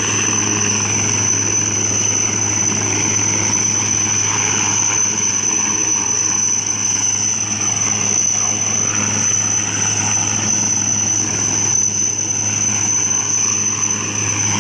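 Helicopter hovering during a flood rescue, its rotor and engine making a continuous steady noise with a high whine.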